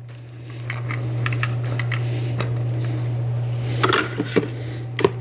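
Light plastic clicks and knocks of toy food packets being handled and put into a plastic toy fridge drawer, with a small cluster of clicks about four seconds in and a sharp click near the end, over a steady low hum.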